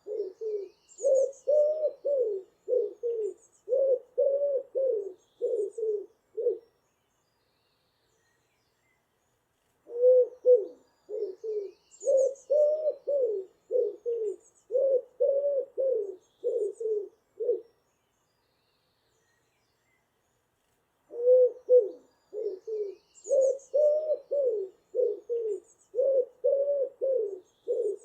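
A pigeon cooing: three bouts of low, repeated coos, each about seven seconds long with a pause of a few seconds between them, the last still going at the end. Faint high chirps of other birds sound in the background.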